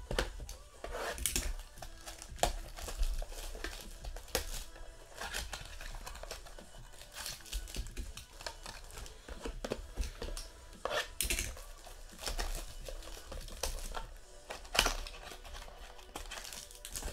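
Clear plastic wrapping being torn open and crinkled by hand as trading-card mini boxes are unwrapped, in irregular crackles and rustles.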